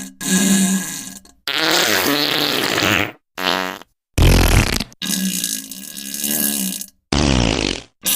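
Diarrhea fart sound effects: about six separate farts in a row, each cut off by a brief silence, some sputtering with a buzzy pitch and others noisy and spluttering.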